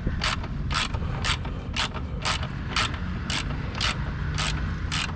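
A socket ratchet being worked back and forth as it tightens a bolt, giving short clicks about twice a second.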